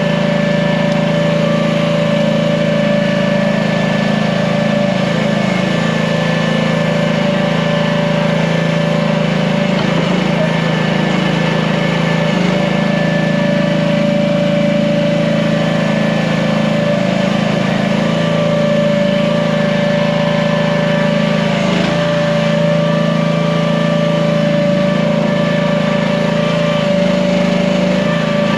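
Small gasoline engine running steadily at a constant speed, with a steady higher whine over it.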